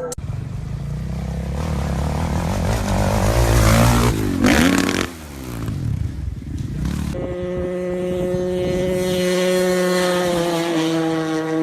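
Dirt bike engine revving hard and climbing in pitch, then dropping off sharply about five seconds in. From about seven seconds on it holds a steady high note.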